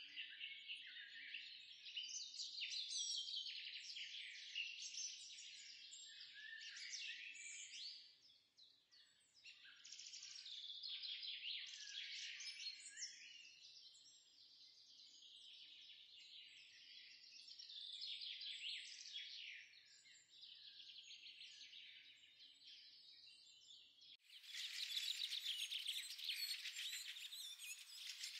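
Faint birdsong, many small birds chirping and twittering together. About 24 s in it cuts abruptly to a denser, brighter chorus of chirps.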